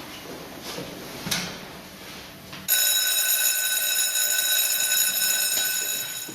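Electric school bell ringing with a steady, loud, high ring for about three and a half seconds, starting about halfway in and cutting off sharply. This is the bell for the start of the lesson. Before it there is low classroom noise and a single sharp knock.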